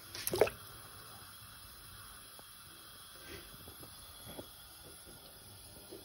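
Water heating in a pan of hand-cut potato chips, with a faint steady hiss and a few small bubbles blipping and gurgling. A brief, louder gurgle or splash comes about half a second in.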